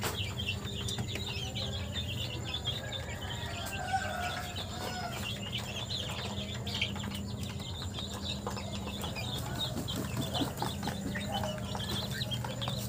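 Chickens clucking and chirping as they feed, many short calls overlapping throughout, over a steady low hum.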